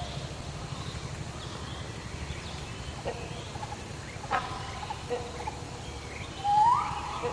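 Great hornbill calling: a few short, separate calls, then a louder run of rising calls starting about six and a half seconds in, over a steady low background noise.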